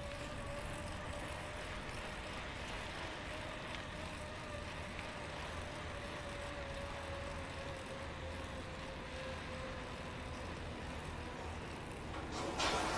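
Steady vehicle and machinery noise with a faint steady whine. Near the end a forklift drives close past and a much louder rush of noise swells up.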